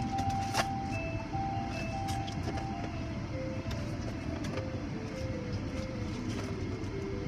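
A simple melody of short single notes at changing pitches plays over a steady low rumble, with a single click about half a second in.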